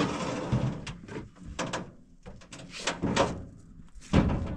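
A string of irregular knocks and scrapes, with the loudest knock about four seconds in.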